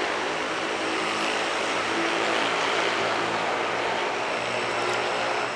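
A steady engine drone with a low pitched hum.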